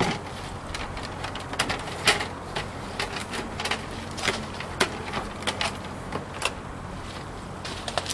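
Irregular clicks and scrapes of a threaded fitting being screwed by hand into a sewer cleanout opening, over a steady low hum.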